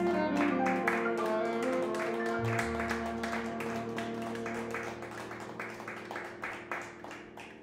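A jazz ballad ending on piano and upright bass, the final chord ringing and fading away, with light scattered clapping from a small audience.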